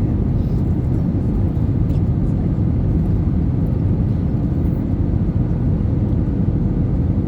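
Airbus A320 on final approach: a steady, loud low rumble of engines and airflow, with a faint steady hum on top.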